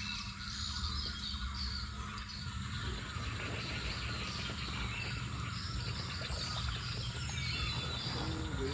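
Many forest birds chirping and calling in quick, overlapping short notes, over a steady low rumble; a few lower, wavering call notes come in near the end.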